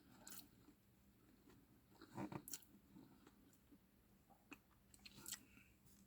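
Faint chewing and mouth clicks of someone eating fried shrimp and vegetables, with a few louder bites about two and five seconds in.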